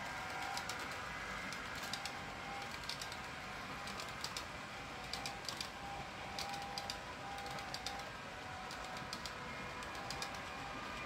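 H0 model freight train rolling past, its wagon wheels clicking over the rail joints in quick little clusters.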